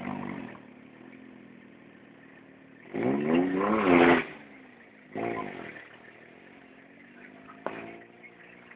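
Off-road vehicle's engine running, revving up loudly for about a second a few seconds in, then again briefly and falling back, before settling to a steady drone.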